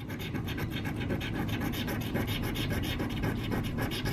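Rapid, continuous scratching of a coin or fingernail across a lottery scratch-off ticket, rubbing off the latex coating.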